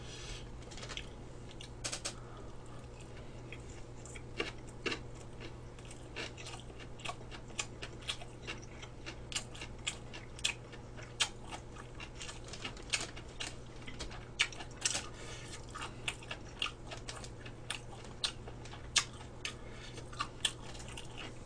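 Close-miked chewing of gimbap: irregular small mouth clicks, about one or two a second, over a low steady hum.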